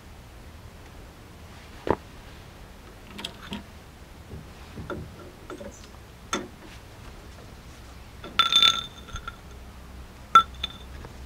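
Steel handle of an Emerson hydraulic jack knocking and clicking against the jack's metal body. Scattered light clicks give way near the end to two ringing metallic clinks.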